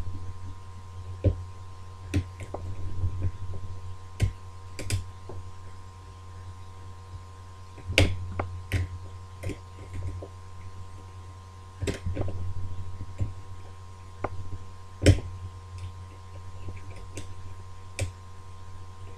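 Picking a British Standard ERA multi-slot lever lock: irregular metallic clicks and taps of the pick and tension wire working the levers, two louder ones about 8 and 15 seconds in, over a steady low hum.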